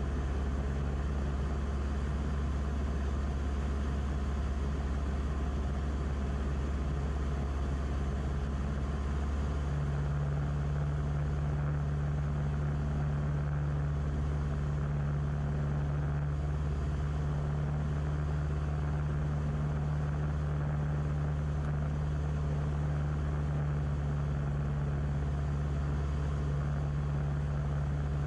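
Beechcraft Musketeer's piston engine and propeller droning steadily, heard inside the cockpit. About ten seconds in, a low hum in the drone grows louder and holds.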